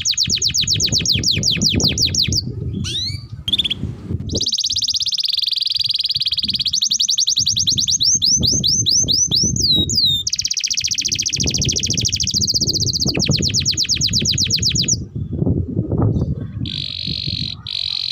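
Domestic canary singing a long song of fast trills, strings of rapidly repeated high notes and sweeping glides, changing from one passage to the next every second or two with brief pauses.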